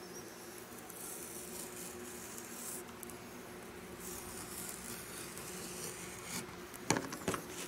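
Utility knife blade drawn along a metal straight edge, slicing through a ribbed rubber sluice mat in two long scraping strokes, with a few sharp knocks near the end.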